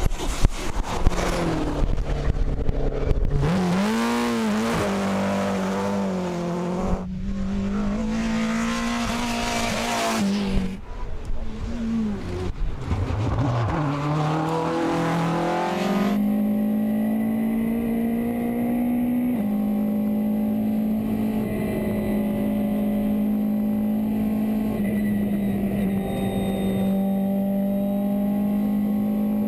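Hill-climb competition cars accelerating hard past the roadside, the engine notes rising and dropping sharply at each gear change. About halfway through comes a steady, high-revving race-car engine heard from inside the cockpit, with one step down in pitch a few seconds later.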